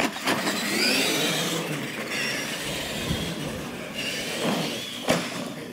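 R/C monster trucks racing on a concrete floor, their motors whining and rising and falling in pitch with the throttle. A single sharp knock comes about five seconds in.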